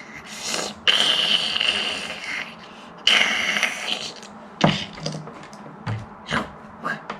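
A child making sound effects with his mouth while playing with action figures: two long hissing, blowing noises, then a few short knocks.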